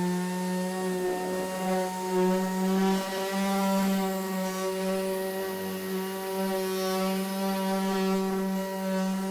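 Random orbital sander running steadily with its abrasive disc on a gelcoat GRP panel: a steady hum with a rasping hiss from the disc on the surface.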